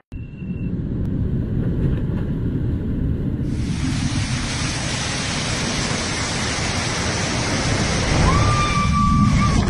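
Waterfall pouring into a rock pool: a steady rushing roar that turns brighter and hissier about three and a half seconds in.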